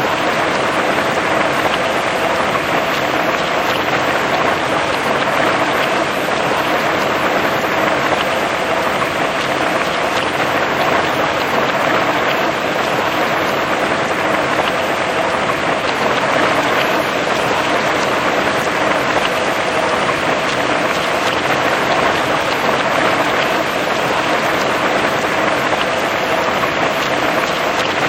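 Heavy rain falling on grass and trees: a steady, even hiss of countless drops with no let-up.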